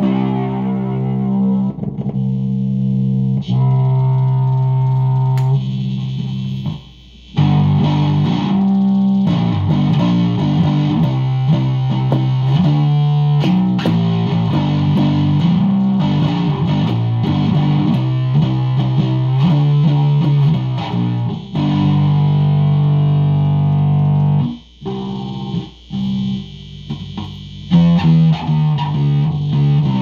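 Two-string electric box bass built from a C.B. Gitty kit, played through an effect: one plucked low note after another, each held and ringing, with short breaks about 7 seconds in and again near 25 seconds.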